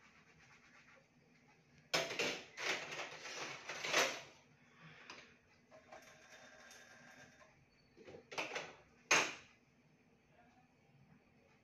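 Dishwashing at a kitchen sink: dishes and utensils clattering and being scrubbed or rinsed, in a rough burst of about two seconds and then two short bursts near the end.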